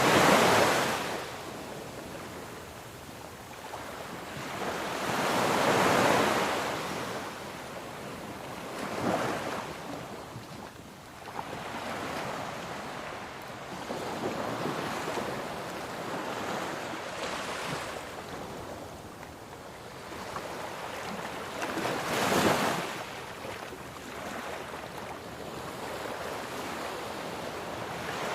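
Ocean waves breaking and washing on a shore, the surf swelling into louder surges near the start and about 6, 9 and 22 seconds in, then ebbing back to a steady wash.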